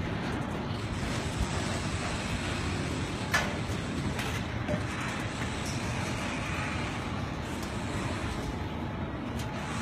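Steady low background rumble, like traffic or machinery at a building site, with a few knocks; the sharpest comes about three and a half seconds in.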